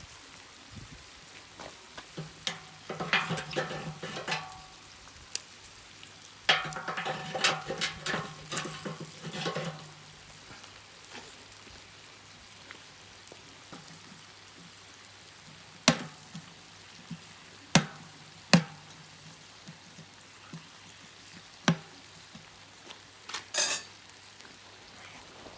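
Sliced bell peppers frying in a large paella pan over a wood fire, stirred and scraped in two spells, then left to sizzle quietly with a few single sharp knocks near the end.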